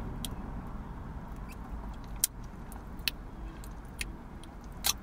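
Someone eating: about half a dozen sharp mouth clicks and smacks spread over a few seconds, over the low steady rumble of a car's interior.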